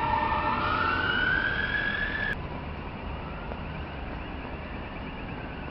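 Electric tram's traction-motor whine, a pitched tone rising steadily as the tram gathers speed, cutting off abruptly about two seconds in. A fainter steady rumble with faint high tones follows.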